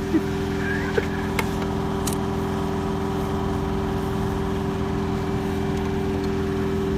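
Steady mechanical hum made of several held tones over a low rumble, with a few faint clicks about one and two seconds in.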